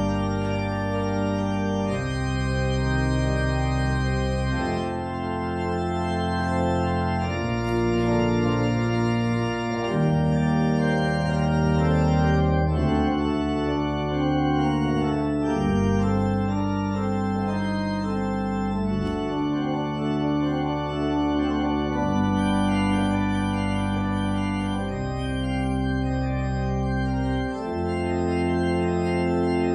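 Organ postlude closing the worship service: slow, sustained chords, each held for a second or two before moving to the next, with a steady bass line underneath.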